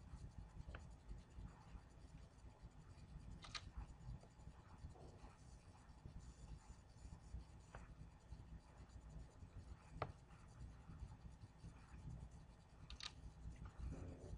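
Near silence: a low room hum with a few faint, short clicks.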